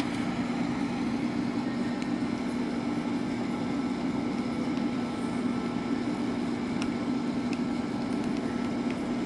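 Optician's hot-air frame warmer blowing with a steady fan hum, heating an eyeglass frame to soften it for refitting the lenses. A few faint clicks come through the hum.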